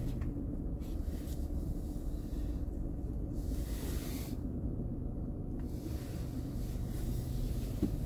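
Steady low rumble inside a car's cabin as the car rolls slowly, with a faint hiss that comes and goes.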